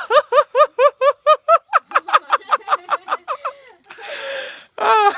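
A child's high-pitched laughter, a fast run of about six "ha"s a second that slows and fades, then a sharp breath in and one more short burst of laughing near the end.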